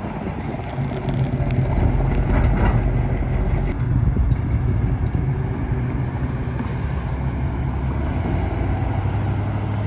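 A car's engine running, a low steady rumble that grows louder about a second in.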